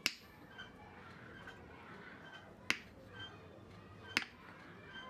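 Three sharp knocks of a wooden-handled hammer on a steel anvil: one at the start, then two more about a second and a half apart in the second half.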